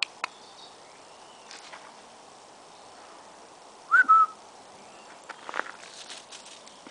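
A short whistle about four seconds in, rising and then held briefly at one pitch, over faint scattered clicks.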